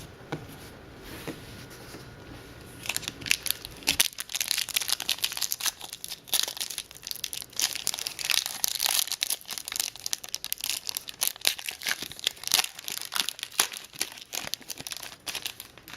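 A trading-card pack wrapper being torn open and crinkled by hand, starting about three seconds in and going on until near the end.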